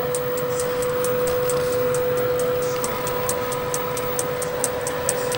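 Halogen countertop convection oven running: a steady motor hum with rapid, even ticking, about five ticks a second.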